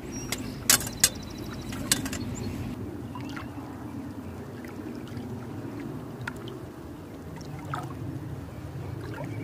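Water running and trickling steadily. A few sharp knocks come in the first two seconds, the loudest sounds here.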